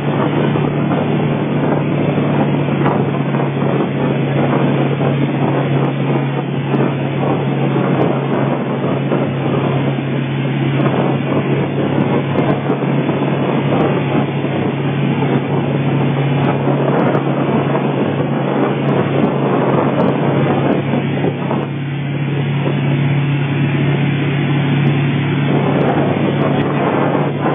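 Tow boat's engine running steadily at speed as a constant low drone, with wind buffeting the microphone and the rush of the boat's wake.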